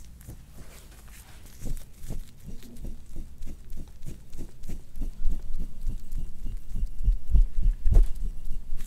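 Instrument-assisted soft-tissue work: a dull metal blade tool drawn in quick, repeated scraping strokes over oiled skin on a back, heard as a run of dull thuds and rubs that grow louder about halfway through.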